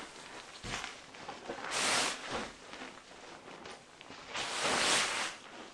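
Bivvy bag and sleeping bag fabric rustling as it is handled and pulled, with two longer swishes, one about two seconds in and one about four and a half seconds in.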